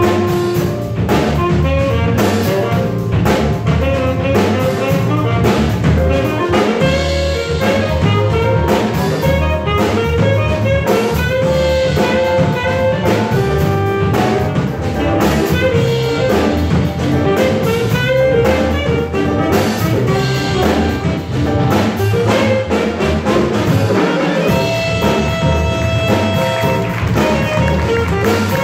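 Small jazz combo playing live: two saxophones over digital piano and a drum kit, in a busy funk-jazz groove. Near the end the horns hold one long note.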